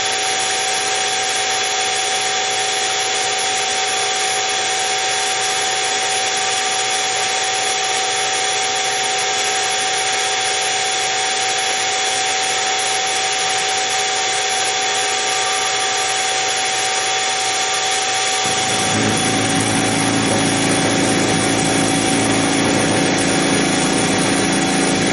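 Harbor Freight 44991 mini mill running steadily with a whining spindle motor while an end mill cuts a radius on a metal part. About eighteen seconds in, a lower rumble joins and the sound gets a little louder.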